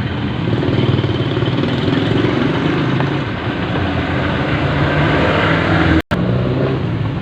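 Noisy jeepney engine running close by, a steady low drone that grows louder about a second in, with a momentary dropout in the sound just after six seconds.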